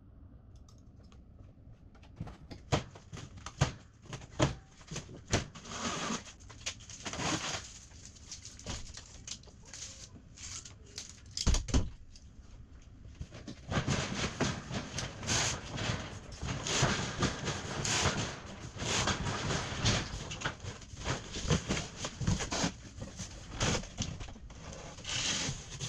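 Large cardboard box being handled and opened: scattered knocks and taps, a loud thump just before the halfway point, then a long stretch of dense scraping and rustling of cardboard with small clicks.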